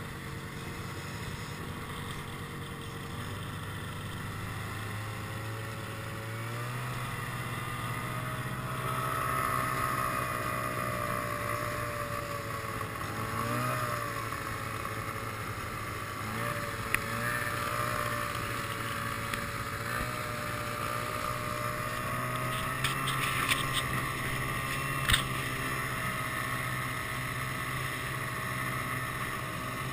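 Snowmobile engine running at a steady trail pace, heard from the rider's own machine, its pitch climbing a little about a quarter of the way in and wavering with the throttle. A few short sharp clicks come later on.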